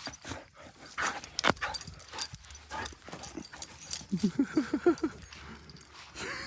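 A dog with a toy in its mouth, a few scuffling knocks and then a quick run of short, low vocal sounds about four seconds in, as it keeps hold of the toy instead of giving it up.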